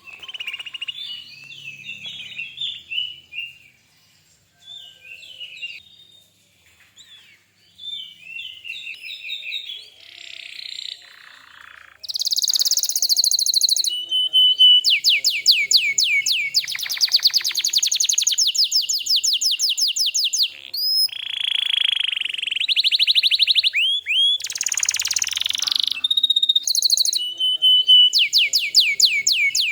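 Domestic canary singing: quieter twittering for about the first twelve seconds, then loud song of fast trills of rapidly repeated notes, one run after another with short breaks.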